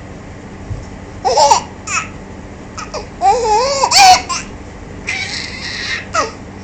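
A baby vocalizing in several short, high-pitched coos and babbles whose pitch bends up and down, with a breathy stretch a little after the middle.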